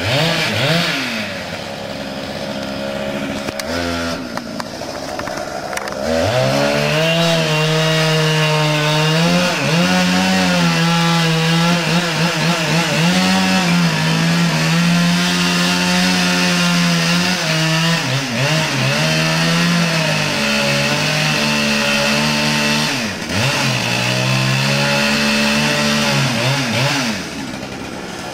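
Chainsaw running at high revs under load as it cuts a tree, its engine note steady for long stretches and dropping back toward idle about four to six seconds in and briefly a few more times.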